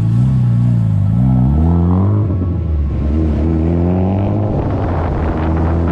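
Honda Civic engine breathing through a newly fitted K-Tuned big-tube exhaust header, revving so the exhaust note climbs and drops several times. The owner says it now sounds deeper.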